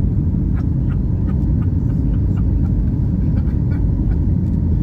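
Steady low rumble of a Boeing 737 airliner's engines and airflow heard inside the passenger cabin.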